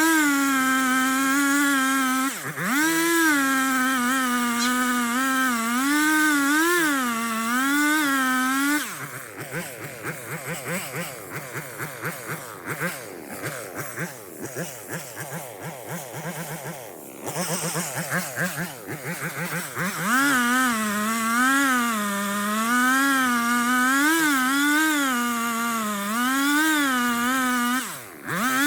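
Two-stroke chainsaw cutting into a tree at full throttle, its pitch wavering up and down as the chain loads in the cut. About nine seconds in it eases off and runs quieter for about eleven seconds, then it comes back up to full throttle and cuts again.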